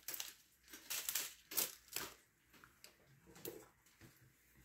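Short crinkles and clicks from hands handling a small plastic packet of diamond-painting drills and a drill pen, several in the first two seconds, then a few faint ticks.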